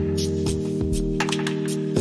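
Background music: a gentle guitar-led instrumental with held chords, a bass line and a light steady beat.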